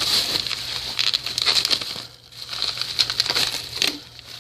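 Plastic packaging crinkling and rustling in the hands as a hard drive is unbagged, with small clicks and a brief lull about two seconds in.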